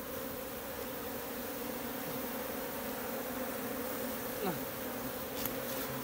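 A colony of wild honey bees, clustered on comb inside a hollow log, buzzing in a steady, dense hum. A brief buzz slides down in pitch about four and a half seconds in.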